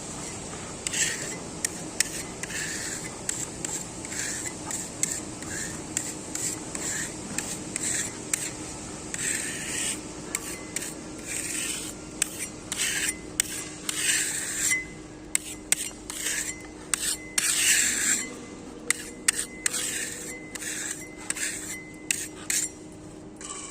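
Hand tool scraping over concrete in many short, irregular strokes, with a few sharp clicks: filler being worked and spread into a crack in a concrete slab.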